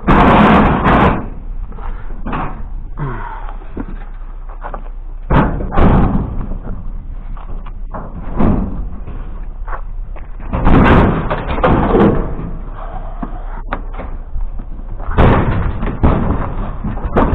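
Pieces of scrap being thrown up onto a trailer, landing in loud clattering impacts about four times, spaced a few seconds apart.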